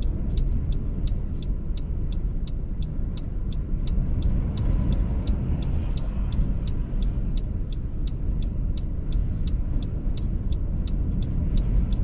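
Strong gusty wind buffeting a stopped car, heard from inside the cabin as a steady low rumble, with a regular light ticking about three times a second throughout. A car passes about five seconds in.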